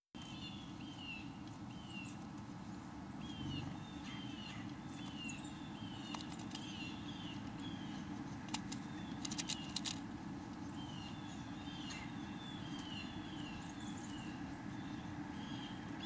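A wild songbird singing a long series of short, falling whistled notes, with a cluster of sharp taps near the middle, over a steady low background rumble.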